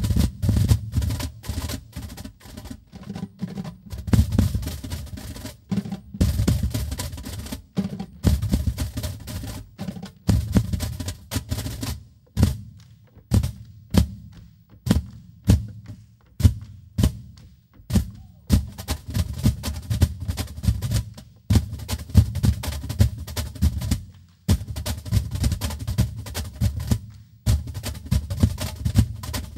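An ensemble of cajóns (wooden box drums) played together by hand: fast rhythmic strikes and rolls in unison. Partway through the pattern thins to spaced single hits, then builds back into dense playing.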